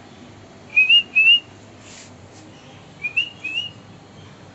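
Short, high whistled notes in two pairs: two quick rising notes about a second in, then two more about three seconds in.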